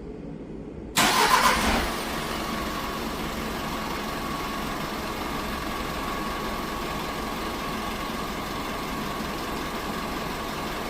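A diesel truck engine, remote-started, fires up about a second in with a brief loud burst as it catches, then settles into a steady idle.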